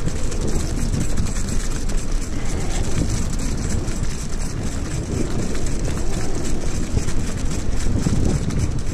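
Wind rumbling and buffeting on the camera microphone, with footsteps splashing and sloshing through shallow water on wet sand.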